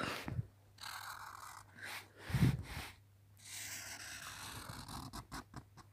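Sharpie marker being drawn across sketchbook paper in several short strokes, a soft scratchy hiss with gaps between the strokes. A short low sound about halfway through, and a few light clicks near the end.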